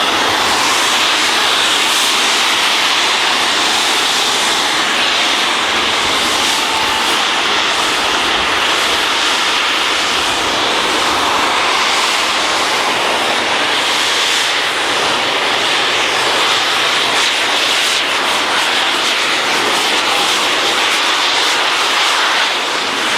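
Jetpack's jet engines running with a loud, steady rushing hiss while its pilot flies.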